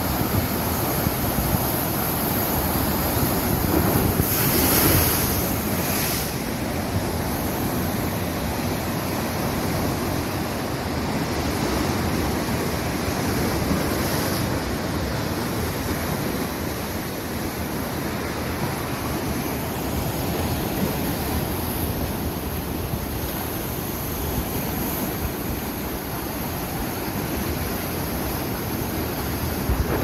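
Sea surf breaking and churning white over rocks along a rocky shore: a continuous rushing wash, with a louder surge about four to six seconds in.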